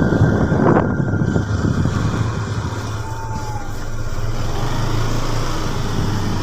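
Motorcycle engine running steadily with a constant low hum. A brief high, falling cry sounds about three seconds in.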